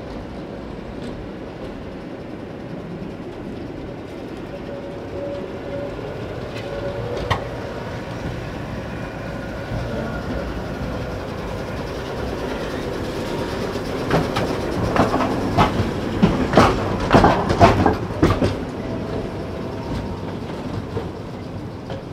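Tatra T3 tram running slowly round a curve and up to a stop, a steady rolling rumble that grows louder as it nears. About two-thirds of the way in, its wheels clatter over the track in a quick run of loud knocks lasting a few seconds.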